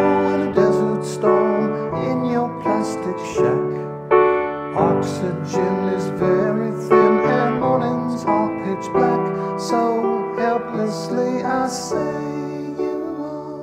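Grand piano played in a slow song, chords struck about once a second, with a man's voice singing along. Near the end the playing stops and the last chord rings away.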